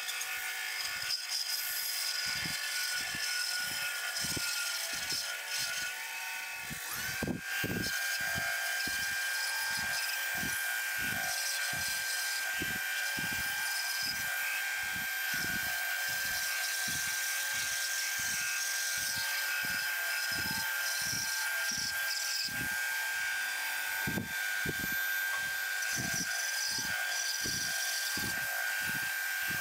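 Bandsaw running and cutting a curve through a thick laminated blank of mixed hardwoods. A steady machine hum with soft low thumps about every two-thirds of a second, and a steady high whine that comes in about seven seconds in.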